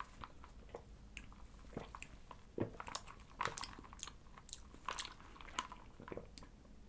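A person drinking milk tea through a plastic straw close to the microphone: faint sips, gulps and short mouth clicks, irregular and about two a second.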